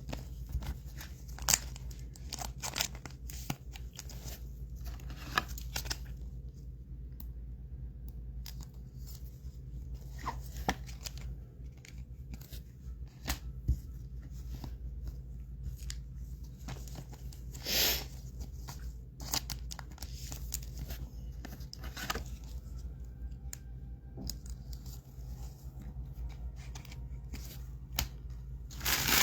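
Trading cards and foil pack wrappers being handled: scattered soft clicks and short rustles, with a couple of slightly longer crinkles, over a steady low hum.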